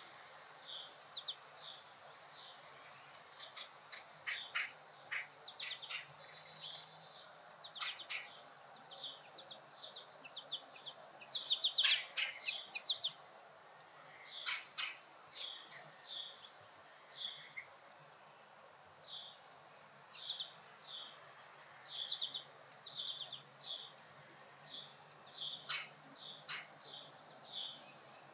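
Small birds chirping in woodland: short high chirps repeated many times, with a louder burst of calls near the middle.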